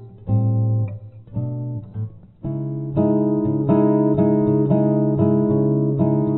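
Background music played on guitar: a few separate chords at first, then steady rhythmic strumming from about two and a half seconds in.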